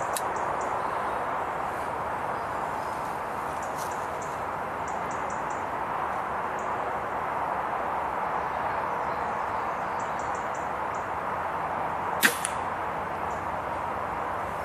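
A single sharp shot from a .25 calibre Sandwell Field Sports Snipe air rifle, about twelve seconds in, over a steady hiss of background noise with faint high chirps in quick runs.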